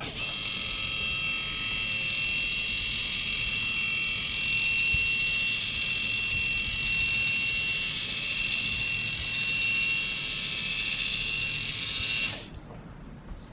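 Maslow CNC Z-axis gearmotor turning a lead screw to move a Bosch POF 1200 AE plunge router along its depth travel: a steady high-pitched whine that cuts off about twelve seconds in.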